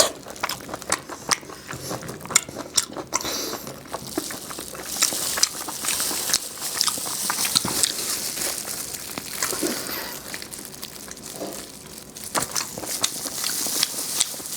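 Close-miked eating: crisp bites and crunchy chewing of food, a steady run of sharp little crackles and clicks.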